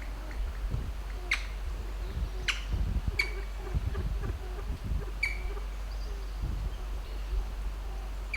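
Kalij pheasant giving sharp clicking calls from its roost, four separate clicks a second or two apart, each with a brief ringing note.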